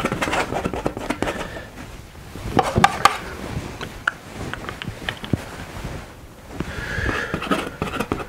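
Large palette knife scraping and tapping against the palette as thick oil paint is mixed, making an irregular run of clicks and scrapes. Near the end comes a longer scraping sound as the knife spreads paint on the canvas.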